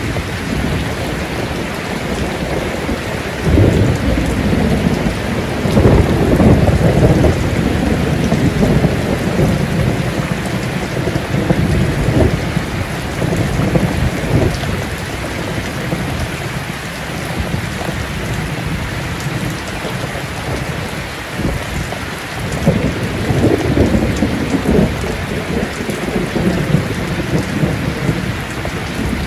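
Heavy rain pouring steadily, with long rolls of thunder rumbling underneath. One builds about three and a half seconds in and runs on for several seconds. Another comes about twenty-two seconds in.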